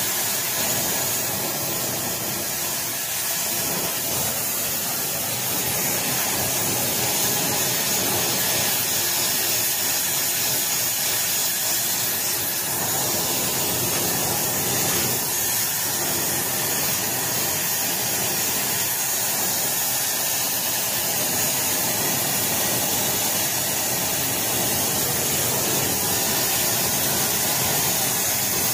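Oxy-fuel torch with a rosebud heating tip burning with a steady hiss as it heats a steel exhaust pipe red hot for bending.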